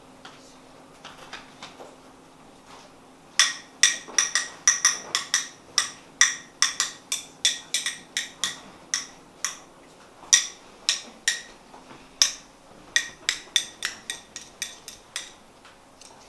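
Repeated sharp metallic taps, two to three a second with a brief ring on each, starting about three seconds in and stopping shortly before the end, after a few faint taps.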